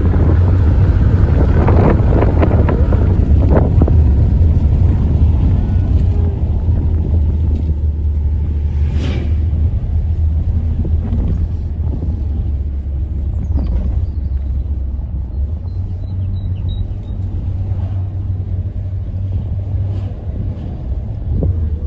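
Car driving along a road, heard from inside: steady low rumble of engine and tyres, with one brief sharp click about nine seconds in.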